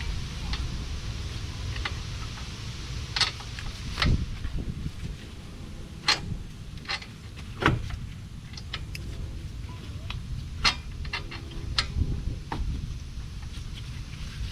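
Irregular metal clanks and knocks of brake parts and tools being worked back over a car's front rotor, about a dozen sharp hits spread unevenly, over a low steady rumble.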